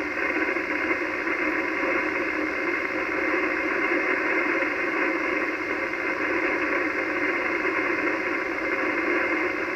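Steady receiver static from an Icom HF transceiver tuned to the 80-metre band: an even hiss held within the narrow single-sideband voice range. It is the open channel with no station transmitting.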